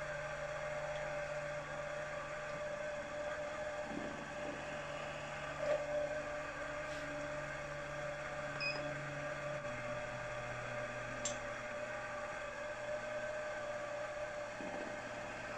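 Bench milling machine running steadily with a center drill in the spindle, spotting a hole for a 6BA tapped hole in a small casting. Its hum steps down slightly in pitch about ten seconds in, with a few light clicks.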